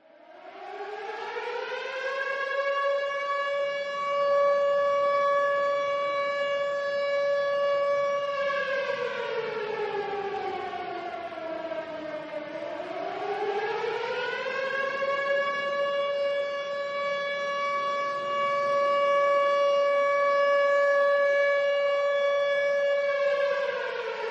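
Outdoor warning siren sounding a long wail. It winds up over about two seconds and holds a steady tone. About halfway through it slides down and winds back up, then holds again and begins to fall near the end.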